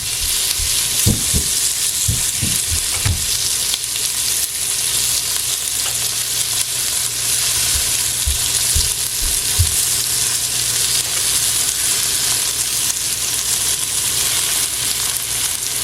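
Sliced okra frying in vegetable oil in a pot, a steady sizzle, with a few soft low knocks in the first few seconds and again around nine seconds in.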